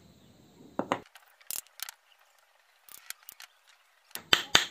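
PVC pipe fittings and small metal parts being handled on a wooden table: scattered light clicks, then two loud knocks near the end.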